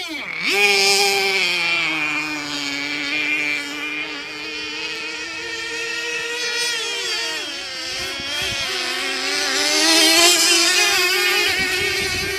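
High-pitched whine of 3.5cc OS glow-fuel outboard engines on radio-controlled F1 tunnel-hull racing boats running flat out. The pitch wavers and dips briefly as the boats turn, then holds steady, getting louder about ten seconds in.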